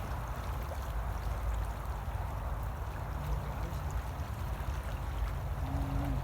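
Steady rush of flowing water in an irrigation ditch's current.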